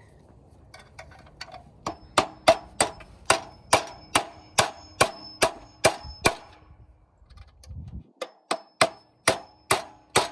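Hammer driving 3-inch 10-penny joist hanger nails by hand into a steel joist hanger. It makes a steady run of ringing metal strikes, about two or three a second, then a brief pause, then another run of strikes near the end.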